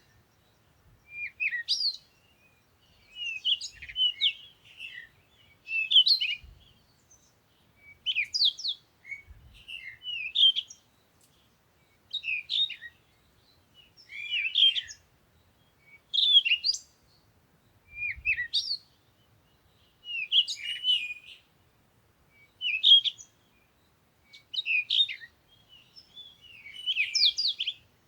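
A bird singing short, quick chirping phrases, repeated about every two seconds.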